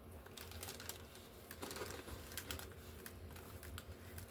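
Hands pressing and smoothing collage paper onto a board-book page, heard as faint, irregular light taps and clicks, several a second.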